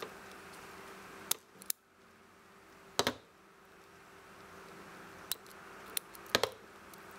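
About six sharp metallic clicks from handling an Irwin self-adjusting wire stripper, the loudest about three seconds in and a close pair near the end, over a faint steady hum.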